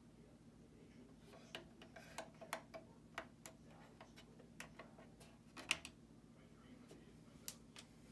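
Faint, irregular light clicks, about a dozen, from an RCA CDRW120 dual-tray CD recorder as its buttons are pressed and its disc mechanism works. They sit over a faint steady low hum.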